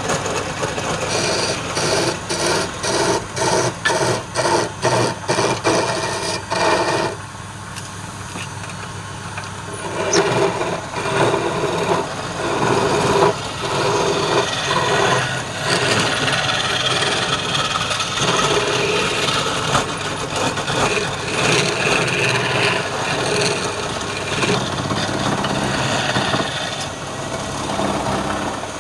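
Wood lathe running while a turning tool cuts into the spinning wood. At first it comes as a quick series of separate scraping strokes, about two a second; after a short quieter spell it turns into continuous, uneven cutting and scraping.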